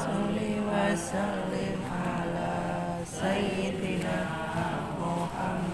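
Voices chanting an Islamic devotional prayer in a slow, drawn-out melody, with long held notes that bend in pitch and break into phrases every second or two.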